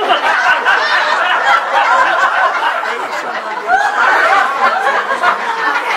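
Theatre audience laughing, many voices at once, breaking out suddenly and swelling again about four seconds in.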